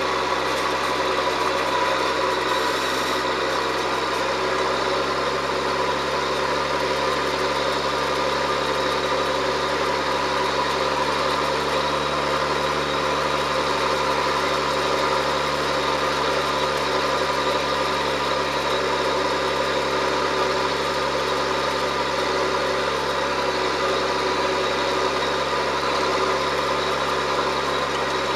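John Deere 7710 tractor's six-cylinder diesel engine running at a steady, unchanging drone while pulling a plough.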